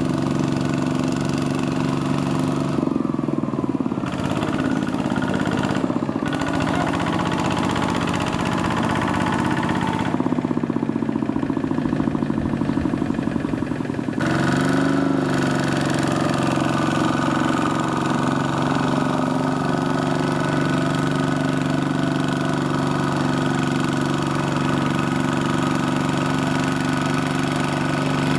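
Small mini-tractor engine running steadily. Its speed shifts briefly about three seconds in, and again for several seconds from about ten seconds in.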